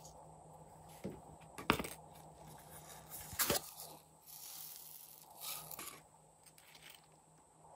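Small plastic cups clicking sharply a few times as they are handled, then a soft rustle as small foam beads are poured onto slime in a glass tray.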